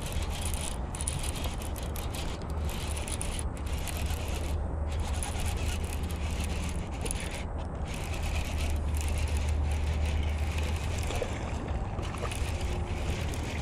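Wind buffeting the microphone of a chest-mounted action camera, a steady low rumble with a light rustling crackle above it.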